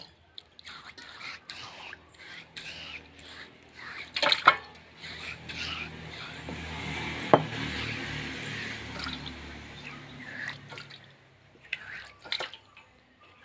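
Wet hand scraping and wiping ground green-pepper paste off a flat stone grinding slab, with water splashing and dripping as the hand is rinsed in a steel bowl. There is a soft splashy stretch near the middle and one sharp click.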